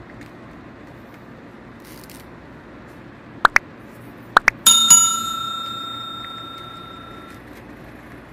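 A bell rings once, about five seconds in, and fades out over about three seconds. Just before it come four short rising chirps, in two quick pairs.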